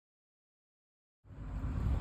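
Dead silence for just over a second, then a steady low rumble with a faint hiss cuts in abruptly.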